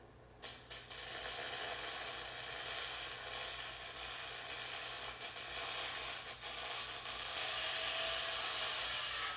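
Gas-shielded wire-feed (MIG) welding arc on a steel angle-iron frame. The arc strikes suddenly about half a second in, then runs as a steady crackling hiss.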